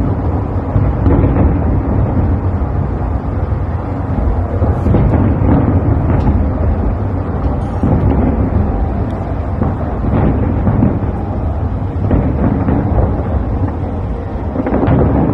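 Fireworks display: a continuous low rumble of overlapping aerial shell bursts, with sharper bangs now and then and a louder surge near the end.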